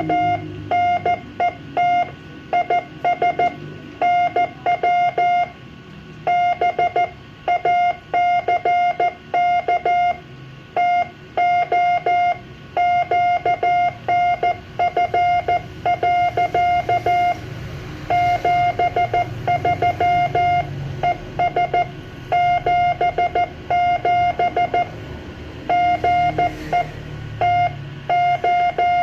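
Morse code (CW) net call on the 2-metre amateur band: a single steady beeping tone keyed on and off in short dots and longer dashes, grouped into letters and words with brief pauses between them, over a faint low background noise.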